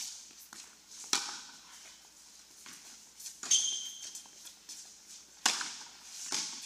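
Tennis balls struck by rackets and bouncing on an indoor hard court during a doubles rally: four sharp pops with a short echo off the hall, spaced one to two seconds apart. A brief high squeak comes with the second one.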